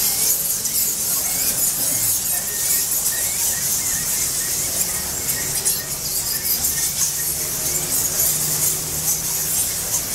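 A large colony of bats roosting in a cave, calling continuously in a dense, high-pitched chatter.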